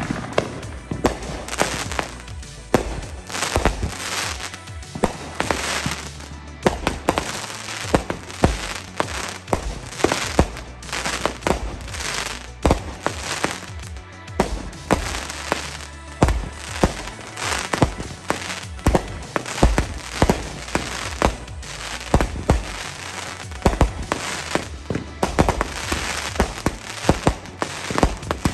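Consumer aerial fireworks bursting overhead: a dense, continuous string of sharp bangs and crackles, several a second, growing thicker near the end.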